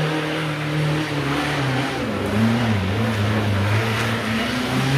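Off-road 4x4's engine revving under load, its pitch holding, dipping and rising again as the driver works the throttle.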